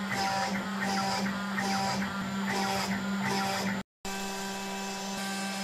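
CNC router spindle running with a steady whine while a 1/8-inch compression end mill cuts a slot in plywood, the cutting sound swelling and fading about twice a second. Near the end the sound breaks off for an instant, then the spindle runs on more evenly without the swelling cutting noise.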